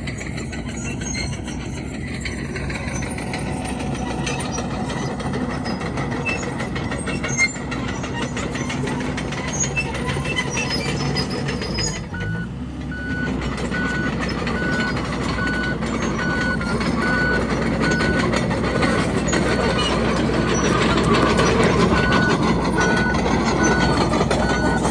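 Komatsu D31PX crawler bulldozer's diesel engine running under steady load, growing louder in the second half. From about halfway a reverse alarm beeps at an even pace, about once a second, as the dozer backs up.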